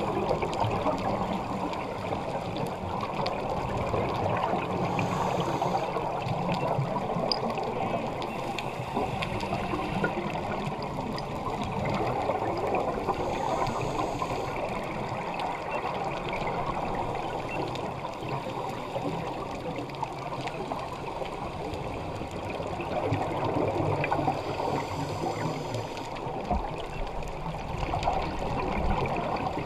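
Underwater rushing and gurgling of scuba divers' exhaled bubbles, a steady low wash of water noise with bubble bursts returning every few seconds.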